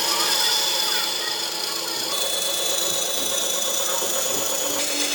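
A power tool running steadily on wood, its tone shifting about two seconds in and again near the end.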